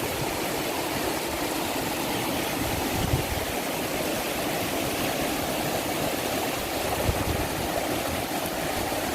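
Rainwater runoff flowing fast over rocks after days of heavy rain, a steady rushing like a small creek.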